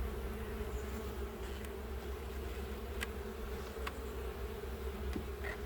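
Honeybees buzzing around an opened hive: a steady hum from the colony, with a few faint clicks.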